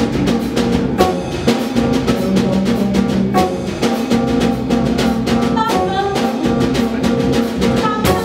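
Small Brazilian samba band playing live: drum kit keeping a steady beat under upright double bass and nylon-string guitar (violão). The band hits one last strong stroke at the very end.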